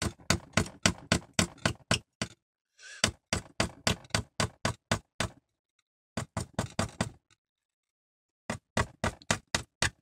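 Hammer tapping a nail into a taped cardboard box: quick, sharp taps about four or five a second, in four runs with short pauses between them.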